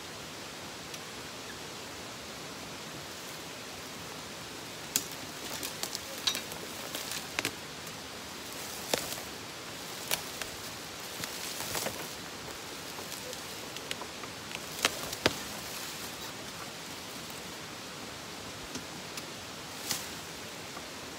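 Dry leaves and sticks crunching and snapping under the tyres of an electric EZGO TXT golf cart as it climbs over a log. The sharp cracks come thick from about five seconds in until about sixteen, with a couple more near the end, over a steady hiss.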